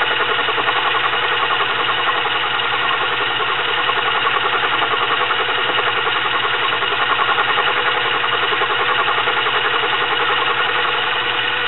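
Small metal lathe running steadily, its chuck spinning a steel shaft that is being turned down: a continuous, even mechanical whir at constant level.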